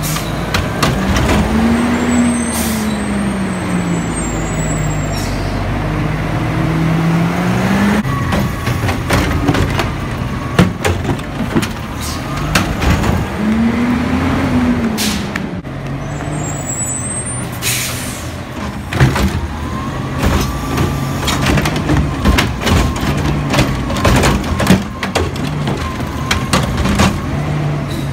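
Automated side-loader garbage truck working: its diesel engine revs up and back down twice as the arm's hydraulics lift and dump carts. Clanks from the carts and arm come throughout, with several short hisses of air brakes.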